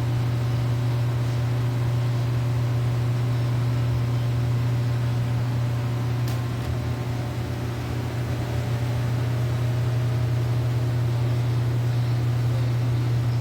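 Steady low machine hum with a faint noisy wash, typical of a pool pump running and driving a suction pool cleaner.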